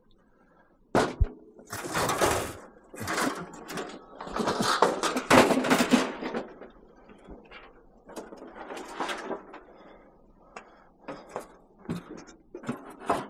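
Irregular clattering and scraping of objects being handled, beginning about a second in, in uneven bursts with short quieter gaps.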